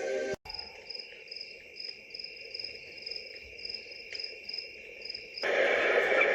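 Recorded cricket chirping played through the small speaker of a Foryond sunrise alarm clock, one of its built-in natural sounds: an even, high chirp about three times a second. About five seconds in it switches to a louder, busier nature sound.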